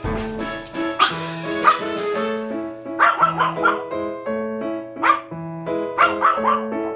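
A Maltese dog barking in repeated short bursts, alarm barking while guarding the house, over background music.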